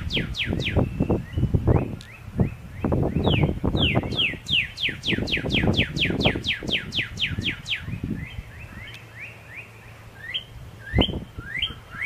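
Birdsong dubbed in as an added sound effect: runs of quick, downward-sliding chirps, about four or five a second, pausing twice and picking up again. Under it, an irregular low rumble of wind on the microphone.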